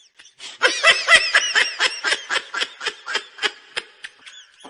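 A person snickering: a quick run of short, high laughs lasting about three seconds.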